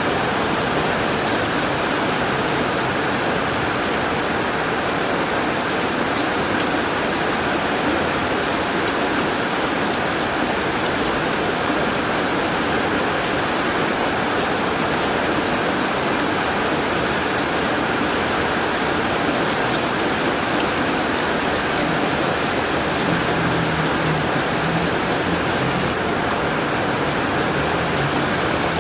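Steady heavy rain drumming on a tin roof, with a dense patter of drops.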